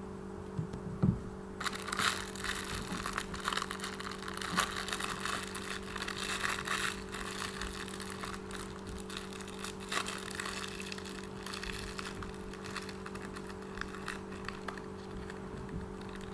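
Crackling, rustling handling of crinkly craft material, starting about a second and a half in, over a steady low hum.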